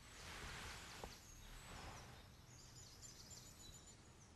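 Quiet woodland ambience, near silence: a soft rustling hiss over the first two seconds, then faint, thin, high bird calls.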